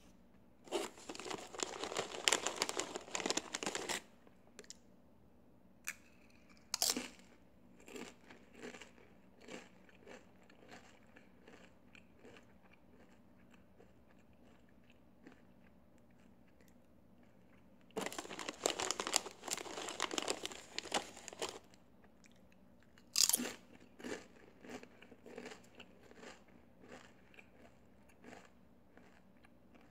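Doritos tortilla chips being eaten: crunching up close, with two sharp bites, each followed by a run of chewing crunches that thins out. Twice, a spell of dense crackling about three seconds long comes before a bite.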